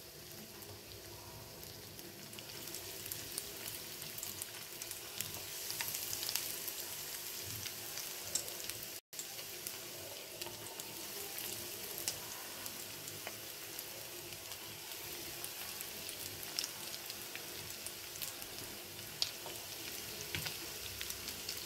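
Hot oil sizzling and crackling as breadcrumb-coated potato cheese balls deep-fry, a steady hiss dotted with small pops, with a momentary break about nine seconds in.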